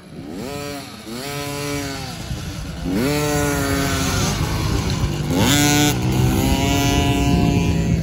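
A child's mini motocross bike revving up and easing off several times as it rides through tight dirt-track corners, the engine pitch rising and falling with each throttle change. It is loudest as it passes close, about five and a half seconds in.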